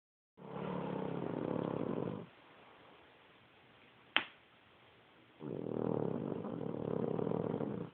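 Snoring: two long snores, each about two seconds, a few seconds apart. A single sharp click falls between them.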